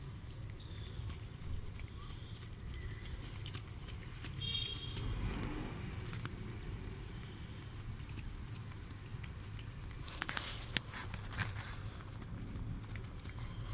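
Cat licking and gnawing at a raw fish: a run of small wet clicks and rasping tongue strokes, thickest about ten seconds in.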